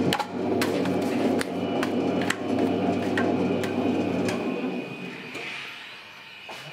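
Plastic dough scraper knocking and scraping against the steel bowl and centre post of a spiral dough mixer, a sharp click every second or so. Under it a steady low hum fades out about four seconds in.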